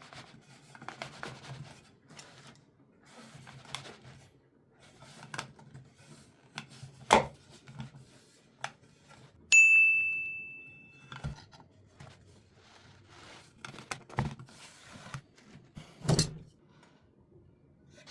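Workshop handling sounds: scattered light clicks and rustles of wood pieces and tools being handled, with two sharper knocks. About halfway through, a single clear metallic ring fades away over about a second and a half.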